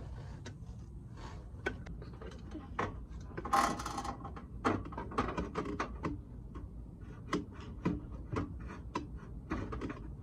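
Hand tools clicking, knocking and scraping at irregular intervals as the intake's hose clamps and fittings are tightened down, with a longer scraping burst about three and a half seconds in, over a low steady hum.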